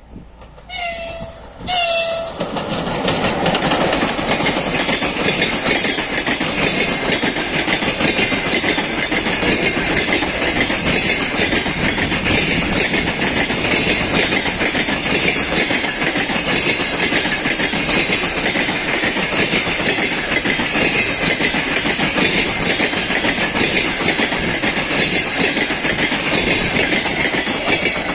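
EP20 electric locomotive sounding two short horn toots in the first two seconds, then its passenger coaches passing close at speed: a loud, steady rush of wheels on the rails.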